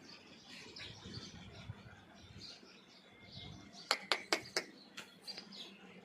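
Small birds chirping on and off, over a low rumble. About four seconds in comes a quick run of five sharp clicks or knocks, the loudest sound here.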